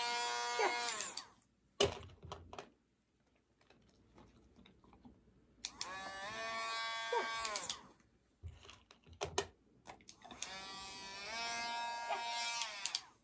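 Handheld rotary nail grinder switched on three times, each run lasting about two seconds. It gives a steady motor whine that rises as it spins up and falls away as it is switched off. There are a couple of short knocks between the runs.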